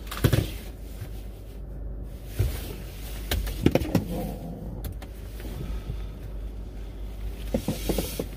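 Inside a car cabin: scattered rustles and short knocks of someone shifting in the seat in a padded jacket, over a steady low rumble from the car.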